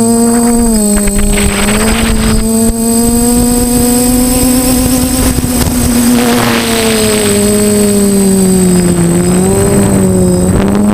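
DJI F450 quadcopter's electric motors and propellers whining steadily, the pitch drifting up and down as the throttle changes, with gusts of rushing wind noise twice. A thin, steady high tone runs underneath.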